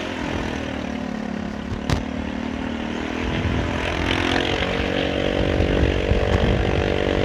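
Rusi RFi175 scooter's engine pulling away and accelerating. Its note climbs about three seconds in and then holds steady, under wind and road noise, with one sharp click about two seconds in.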